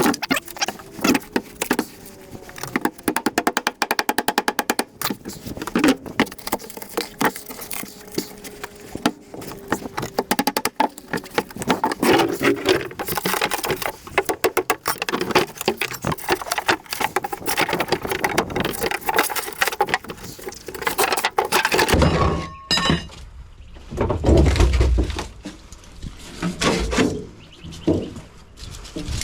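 Clattering, cracking and scraping of metal and plastic as copper pipework is pulled out of a fridge-freezer cabinet, with a rapid run of clicks a few seconds in and heavier thumps near the end.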